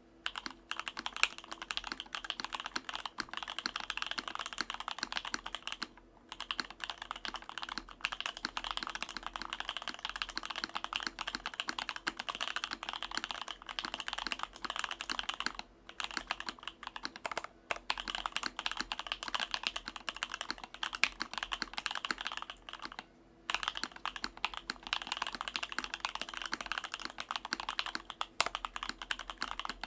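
Continuous fast typing on a J-02 mechanical keyboard with Novelkeys Dry Black linear switches and Cherry clip-in stabilizers lubed with Krytox 205g0, a carbon fibre plate and EPBT PBT keycaps: a dense run of key clacks, broken by brief pauses about six, sixteen, eighteen and twenty-three seconds in.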